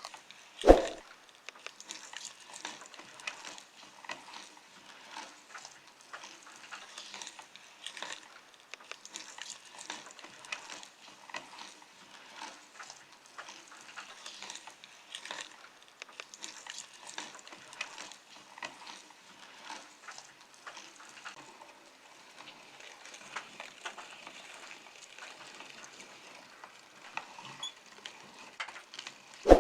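Meat grinder crushing peppers: a continuous wet crackling and popping of many small irregular clicks. One loud knock comes about a second in.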